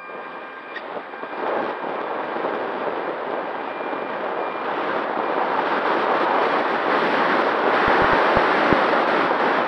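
Wind rushing over an onboard camera on an E-flite Apprentice STS RC plane in flight, rising steadily in loudness as the plane gathers speed. A thin whine, typical of the plane's electric motor and propeller, fades out about a second in.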